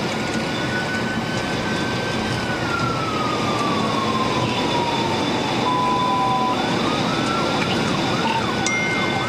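Police car siren wailing over the engine and road noise of a car moving at speed. The siren holds a high pitch, glides slowly down over a few seconds, then climbs again near the end, where several sweeps overlap.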